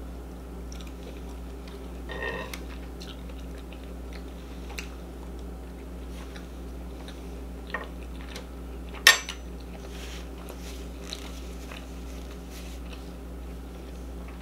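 Close-miked chewing of sauced sausage: soft wet mouth sounds and scattered small clicks, with one sharp click about nine seconds in, over a steady low hum.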